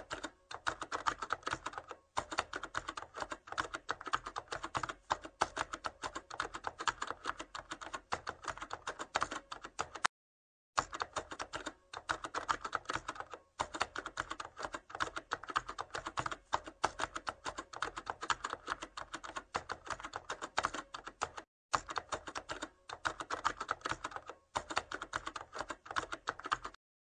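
Rapid keyboard typing clicks, a typing sound effect, in runs broken by short pauses, the longest about ten seconds in.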